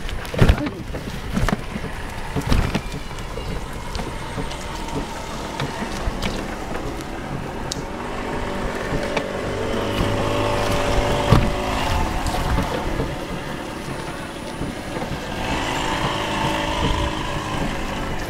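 Cycle rickshaw rolling over a rough, potholed dirt road: a steady rumble from the wheels on the dirt, with the frame rattling and knocking sharply on the bumps, several times near the start and once in the middle.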